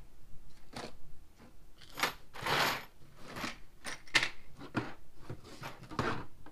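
Small items being picked up and set down on a hard desktop: a series of light clicks and taps, with a short rustle about two and a half seconds in.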